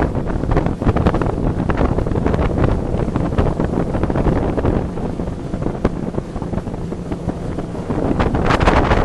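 Heavy wind buffeting the microphone on a speeding Mekong fast boat, gusting unevenly over the boat's running engine, and growing louder near the end.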